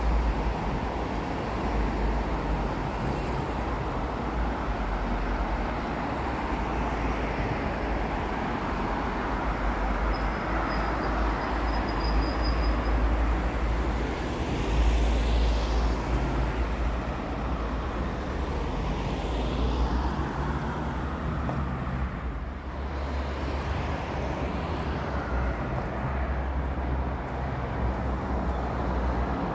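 Street traffic: motor vehicles passing, with a steady low rumble and a louder pass-by about halfway through.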